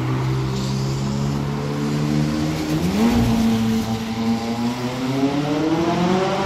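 Car engine running with a steady low drone, then rising in pitch about three seconds in and climbing steadily to the end as it accelerates.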